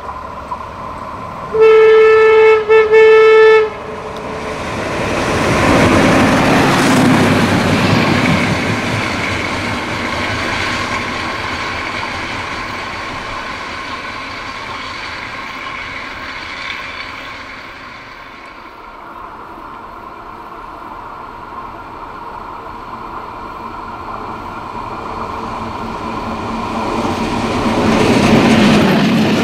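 A vintage red diesel railcar's horn gives a loud, pitched blast about two seconds in, broken twice. The railcar's engine and wheels then run past and fade away. Near the end a second train, a ČSD class T478.1 diesel locomotive hauling coaches, comes up close and loud.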